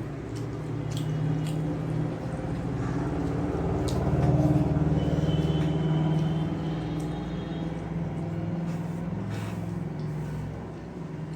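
A motor vehicle passing, its low engine hum building to a peak about four seconds in and then slowly fading, with a few small clicks over it.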